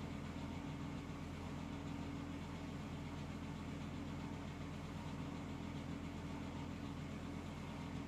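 A steady low mechanical hum that holds constant throughout, with no breathing rhythm or snore in it.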